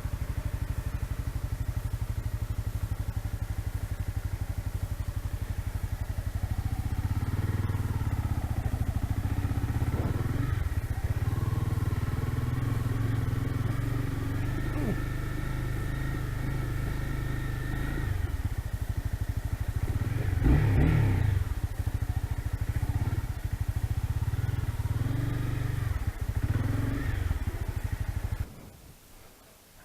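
Motorcycle engine running while riding, its pitch rising and falling with the throttle, with a louder rev about two-thirds of the way through. The engine sound cuts off suddenly near the end.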